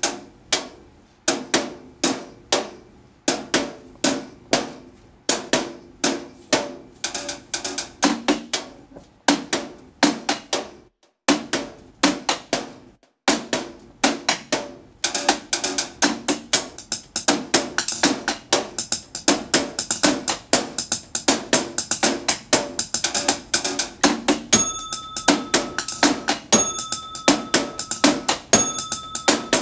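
Drumsticks striking computer monitors, desks and other office equipment in a rhythmic percussion piece. It starts with sparse hits about a second apart, pauses briefly, then builds into dense, layered drumming. Near the end a repeating ringing tone joins in.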